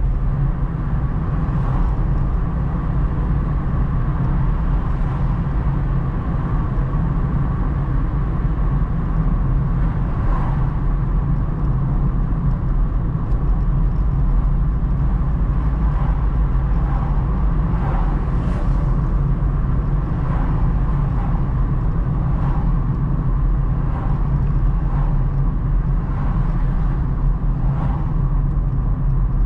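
Steady low rumble of a car on the move, heard from inside the cabin: engine and tyre noise on the road surface, with a few faint short knocks now and then.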